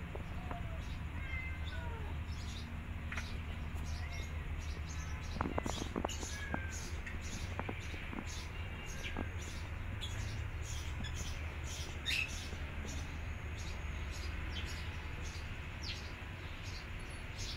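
Cats mewing in short, scattered calls over a steady low rumble, with a few light clicks about six seconds in.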